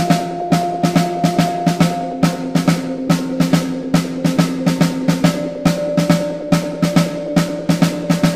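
Drum kit played with sticks in a march rhythm: sharp strikes several times a second, over sustained held tones whose higher notes change pitch about two seconds in and again about five seconds in.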